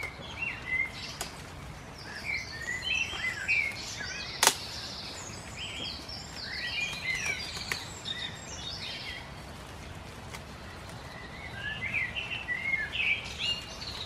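Songbirds chirping and singing in quick, repeated phrases, coming in three spells, over a steady outdoor background hum. A single sharp click about four and a half seconds in.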